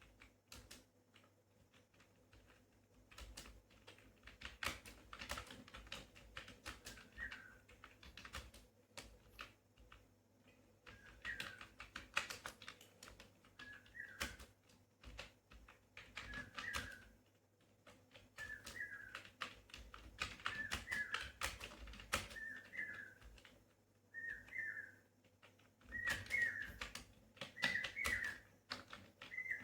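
Computer keyboard being typed on in quick, uneven bursts of key clicks. From about seven seconds in, a bird gives a short chirping call about every second and a half, getting louder toward the end.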